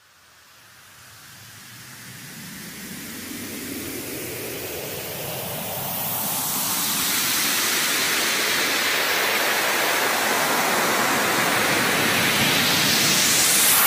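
Synthesized white-noise riser opening an electronic dance track. It fades in from silence and grows louder and brighter over the first half, then holds as a steady hiss, the build-up that leads into the beat.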